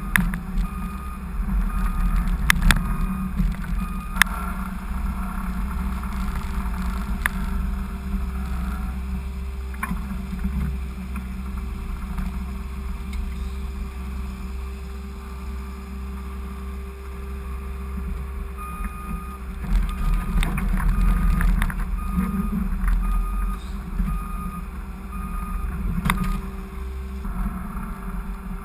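Skid steer engine running steadily under load while the box plow works, with several sharp knocks and scrapes. An evenly pulsed beep sounds in two stretches, near the start and again in the second half, typical of the machine's reversing alarm.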